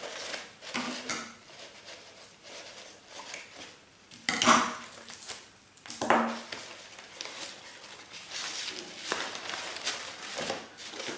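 Crepe paper and a paper cone being handled and shifted on a table: irregular rustling and crinkling, loudest a little over four seconds in.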